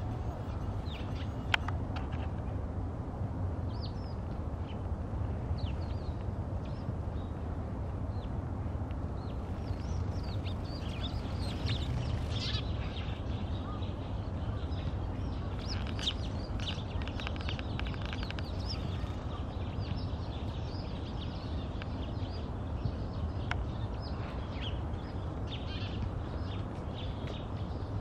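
Eurasian tree sparrows chirping at an evening roost in a hedge: many short high chirps, busiest in the middle, over a steady low city rumble.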